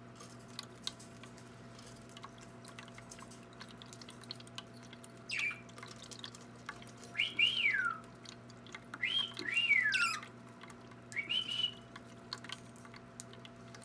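Parakeets (budgies) giving four whistled calls in the second half, each a slurred glide that rises to a high note and falls away, over the faint steady trickle of a small bird water fountain.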